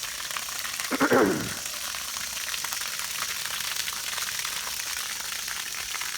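Bleach water gushing steadily out of the opened drain valve of a Maxant honey extractor, a continuous hissing rush, driven by the pressure of the full tank. About a second in, a short sound with a falling pitch cuts across it.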